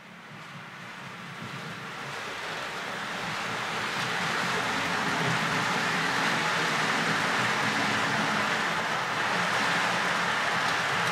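HO-scale model train, a Jouef BB 36000 electric locomotive hauling flat wagons, running along the track: a steady rolling noise of wheels on rails. It grows louder over the first four seconds as the train approaches, then holds steady as it passes.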